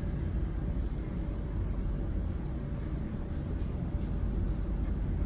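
Steady low background rumble with a faint hiss, with no distinct handling clicks or knocks standing out.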